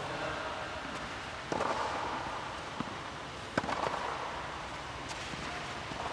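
Tennis ball struck by rackets in a rally: two sharp hits about two seconds apart, with a fainter knock between, each hit echoing under the court's air-dome.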